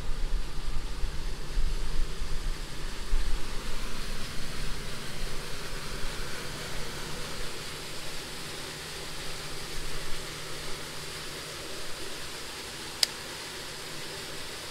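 Steady outdoor rushing noise, with uneven low bumping and rustling in the first few seconds as someone walks through grass and brush. One sharp click comes near the end.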